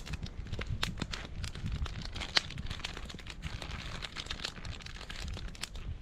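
Small wood campfire crackling with irregular sharp pops, mixed with the crinkling of a plastic sausage package being handled as sausages go on the grill.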